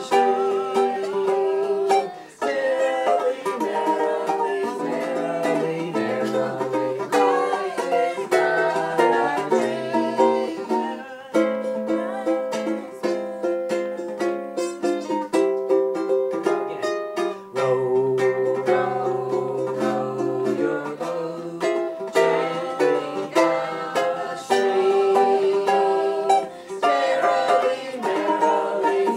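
Solo ukulele playing a tune, with chords and single notes picked and strummed.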